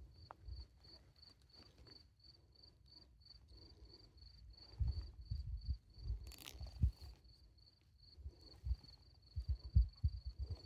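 A cricket chirping steadily, a high pulsed tone at about five chirps a second, over irregular low thumps and rumbles.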